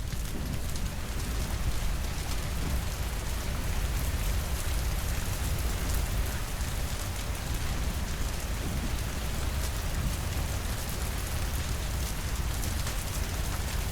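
Steady rainfall: a dense, even hiss flecked with the ticks of single drops, over a constant deep rumble.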